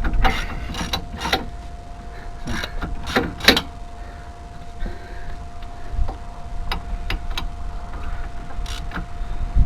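Hand tools and brake parts being handled on a van's rear hub: scattered metallic clicks and knocks, bunched near the start and again around three seconds in, with a faint steady tone underneath.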